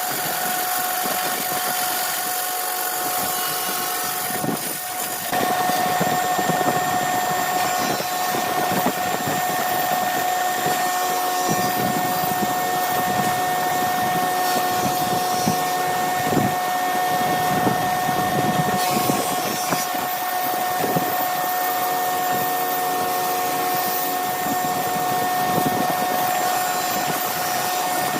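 Woodturning lathe running with a steady motor whine and the rough noise of the work spinning. There is a short dip about five seconds in, after which it is slightly louder.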